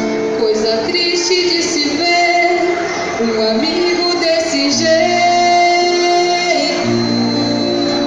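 A woman singing a slow gaúcho folk song through a microphone and PA speaker, with long held notes, accompanied by an acoustic guitar.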